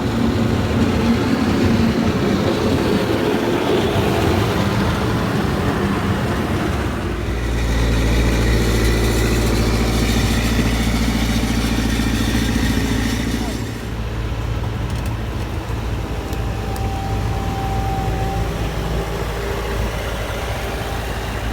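An engine runs steadily, louder and heavier for several seconds midway, with indistinct voices in the background.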